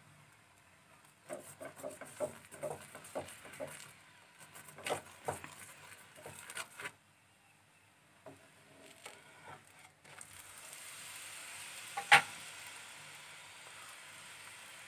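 A spoon scrapes and taps repeatedly on a paratha in a nonstick frying pan as oil is spread over it. After a pause there is a sharp knock about twelve seconds in, as the paratha is turned over, and then a steady sizzle as the oiled side fries.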